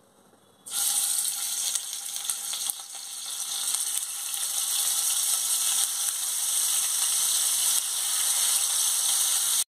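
Pieces of katla fish sizzling and crackling in hot mustard oil in a kadai. The sizzle starts suddenly about a second in as the first piece goes into the oil and keeps on steadily, growing a little louder as more pieces are added.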